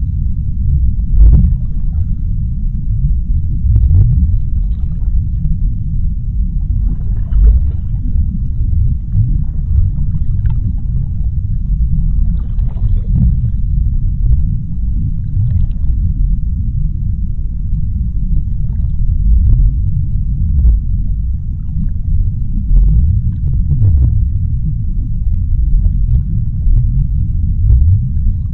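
Deep-sea underwater ambience: a loud, steady low rumble, with faint brief crackles rising above it every second or two.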